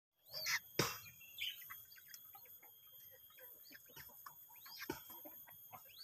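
Short, high chirping bird calls with many faint ticks and taps between them. The loudest sound is a single sharp click just under a second in, and a second click comes near the end.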